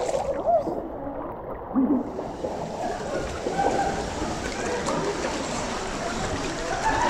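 River water splashing and gurgling over a steady rush of flowing water. The sound turns muffled, losing its high end, shortly after it begins and again near the end.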